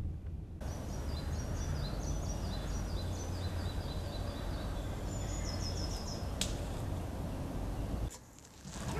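Outdoor ambience of birds singing in series of short, high chirps that step downward, over a steady low rumble. A single sharp click comes about six and a half seconds in.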